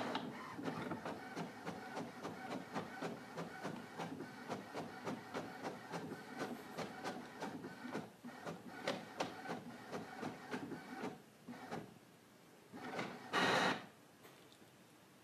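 Printer printing: a rapid, rhythmic run of mechanical ticks and whirring for about eleven seconds, then quieter, with one brief louder burst near the end.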